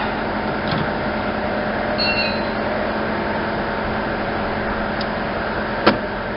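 A steady mechanical hum, with a brief high squeak about two seconds in and a single sharp click near the end as the rear hatch latch of a 2002 Toyota Sienna is worked open with vise grips.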